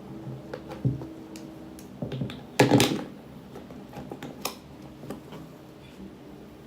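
Scattered light clicks and taps of hand handling, with a louder clattering cluster just under three seconds in.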